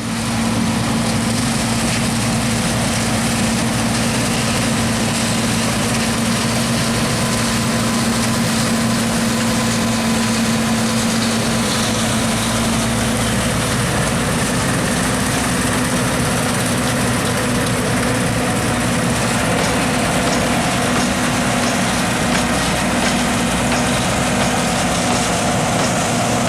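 John Deere T660 combine harvester running steadily, a continuous engine hum with a steady tone that shifts slightly in pitch about halfway through.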